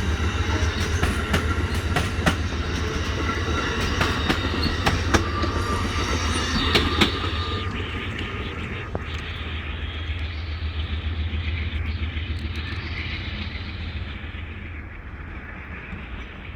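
Amtrak passenger train rolling past, its wheels clicking over rail joints over a steady rumble. After about seven seconds the clicks stop and the rumble fades as the train moves away.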